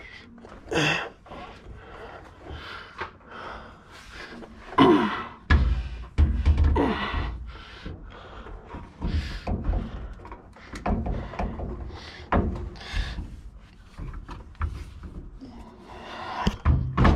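A man straining as he lifts a heavy Ford 9-inch differential third member by hand and works it into the axle housing. There are grunts and heavy breaths, knocks and rubbing of metal on metal, and heavy thuds about five to seven seconds in.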